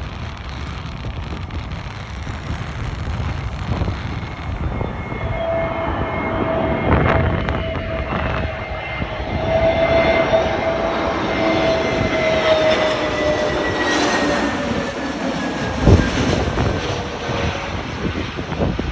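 Airbus A321neo's CFM LEAP-1A turbofan engines passing on approach to land: a steady jet noise with a whining tone that comes in about five seconds in and slides slowly lower as the plane goes by. A brief thump about sixteen seconds in.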